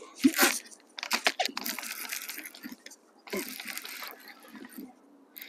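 A hooked bass splashing at the water's surface in three short bouts. The first, near the start, is the loudest, and a longer stretch of splashing and clicking comes after it.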